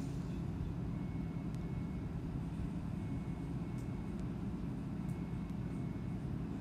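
A low steady hum, with a faint high tone sounding briefly a few times.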